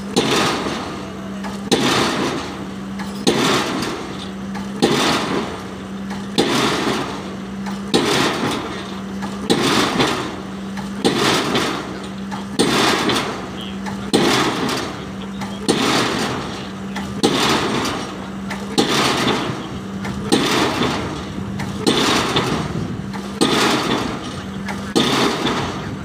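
Diesel pile hammer driving a PHC spun concrete pile: a heavy blow about every one and a half seconds, evenly paced throughout. A steady low hum runs underneath the blows.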